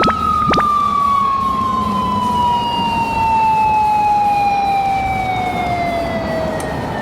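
Police motorcycle siren giving one long wail that climbs fast and then falls slowly in pitch, over a low rumble, with a couple of sharp clicks just at the start.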